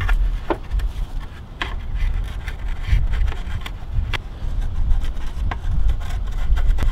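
Metal scraper blade scraping old RTV silicone sealant off the DISA valve port of a BMW M54 engine's plastic intake manifold, in short, irregular strokes and clicks. A loud low rumble runs underneath.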